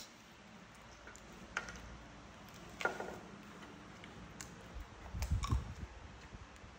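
A few scattered small clicks and taps as young macaques bite at a green lotus seed pod and pick at loose lotus seeds on a wooden table, with a short cluster of soft knocks about five seconds in.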